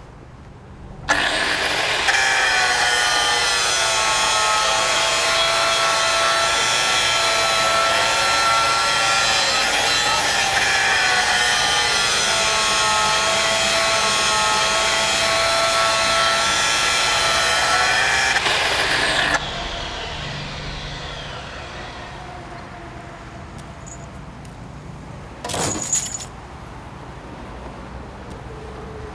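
Electric grinder switched on about a second in and running steadily for some eighteen seconds, its pitch dipping briefly a couple of times. It is then switched off and winds down with a falling whine. Near the end there is a short, loud burst of noise.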